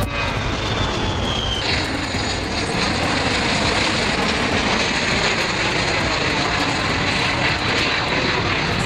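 Jet engine noise from a Beriev Be-200 amphibious firefighting aircraft flying low, its twin turbofans running loud and steady. A high whine falls in pitch over the first second and a half, then the sound changes suddenly to a fuller, even noise.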